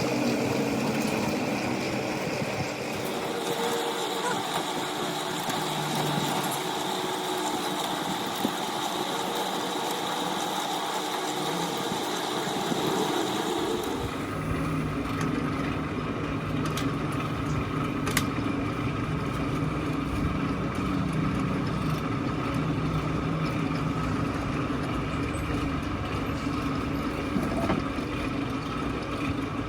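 An engine running steadily. About halfway through the sound changes suddenly: a constant high whine gives way to a heavier, low rumble from the engine.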